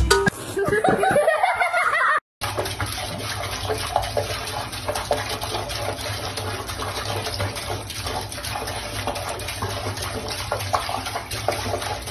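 A short pitched sound, then, after a brief break about two seconds in, tap water running steadily from a faucet into a sink.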